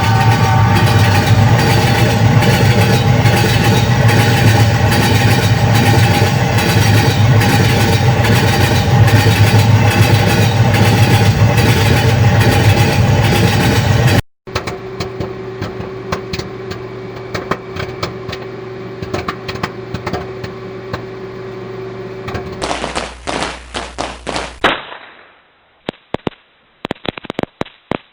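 Train running loud and steady, a rumbling noise with steady tones, for about fourteen seconds. Then it cuts off sharply into a run of separate sharp cracks and pops, broken by several abrupt cuts.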